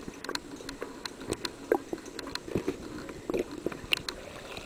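Irregular sharp clicks and soft muffled knocks picked up by a camera under water, several a second with no steady rhythm.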